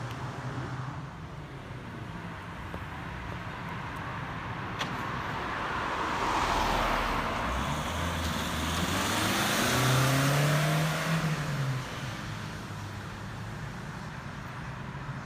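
A motor vehicle drives past, its engine and tyre noise swelling to a peak about ten seconds in, with the engine note rising and then falling, before fading away.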